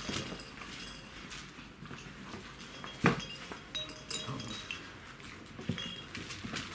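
Czechoslovakian wolfdog puppies playing and scuffling, with scattered light clicks and brief high pings and one sharper knock about three seconds in.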